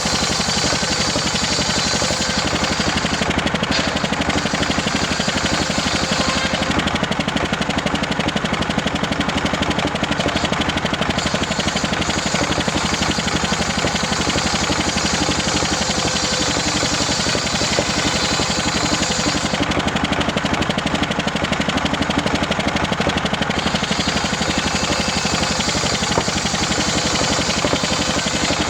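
Homemade circular sawmill rig running steadily as it saws waru (sea hibiscus) wood into rafter blanks, its motor throbbing fast and even. A higher, hissing cutting sound drops away briefly a few seconds in and again for a few seconds twice more, as the blade passes in and out of the wood.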